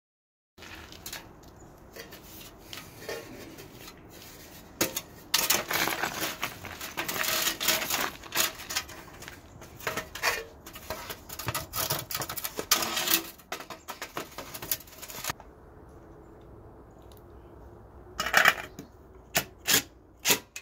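Sheet-metal wall thimble clattering and scraping against brick as it is worked into a hole cut through the wall, a dense run of clicks and rattles. Near the end, a few short bursts from a DeWalt cordless impact driver driving screws into the brick.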